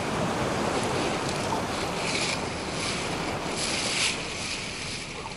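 Water rushing and splashing along a Neptun 22 sailboat's hull under way, with a hiss of spray surging about once a second and wind buffeting the microphone.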